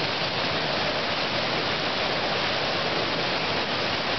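River rapids rushing steadily, an even wash of whitewater noise.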